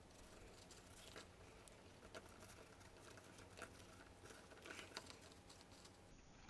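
Faint rustling and light scattered ticks of card pieces being handled and fitted together.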